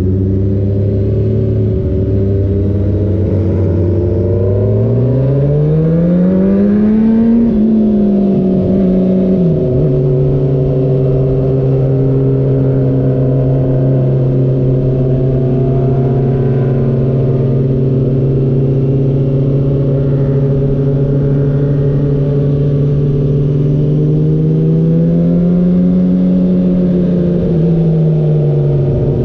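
Motorcycle engine under way, heard from the bike itself: its pitch climbs for a few seconds as it accelerates, drops sharply on a gear change about nine seconds in, then holds steady before rising briefly and easing back near the end.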